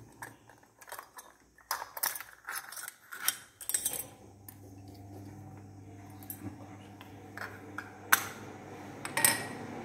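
Small metal torch parts (reflector, lens ring, bulb holder) being handled and set down on a tiled floor: scattered clicks and clinks. A faint steady hum sets in about halfway through.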